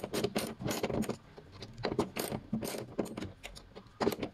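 A 12 mm box wrench turning a bolt out of a car's bonnet hinge bracket: irregular metal clicks and clinks, several a second.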